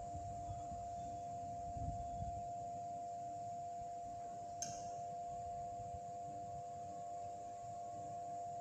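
A steady, high-pitched electrical whine holding one pitch, with a single sharp click about four and a half seconds in.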